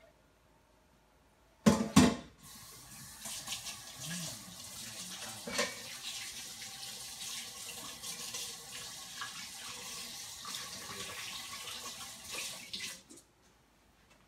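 Two sharp knocks, then a kitchen tap running into a sink for about ten seconds, a steady hiss that stops shortly before the end.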